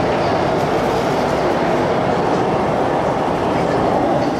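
MTR Island Line M-Train (cars A112/A187) running through an underground station at speed without stopping: a loud, steady running noise of the passing train.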